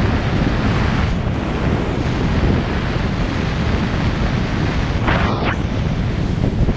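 Wind buffeting the camera microphones in wingsuit flight: a loud, steady, low rush of air, with a brief brighter rush about five seconds in.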